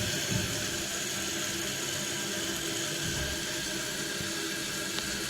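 Kohler Wellworth toilet tank refilling: the fill valve hisses steadily as water runs in and the level rises.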